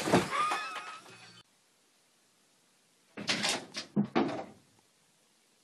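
Knocks and clatter from cats jumping and landing: one burst at the start as a cat crashes into a cardboard box, and a second group of bangs a little past three seconds in.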